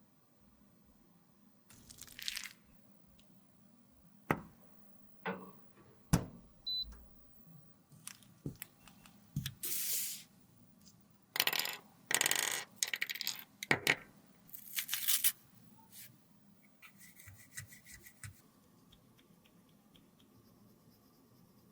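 Handling sounds of cosmetic containers and tools: a series of sharp clicks and taps, with several short scraping or rustling bursts in the middle and faint quick ticking near the end.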